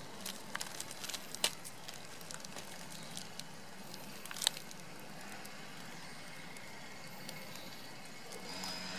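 Quiet outdoor ambience: a steady faint hiss with scattered small clicks and crackles, two sharper clicks about a second and a half and four and a half seconds in. Faint high thin tones come in near the end.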